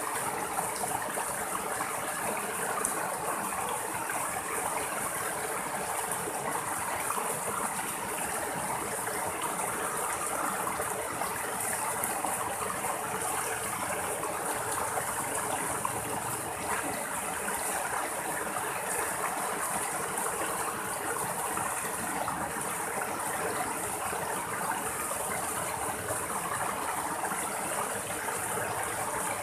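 Small rocky stream splashing over low cascades between boulders: a steady rush and babble of running water.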